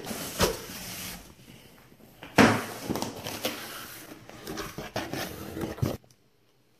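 Cardboard scraping and rubbing as a packed inner box is pulled out of a larger carton, with plastic-bagged cable bundles crinkling as they are handled. The loudest scrape comes suddenly about two and a half seconds in, and the noise cuts off abruptly near the end.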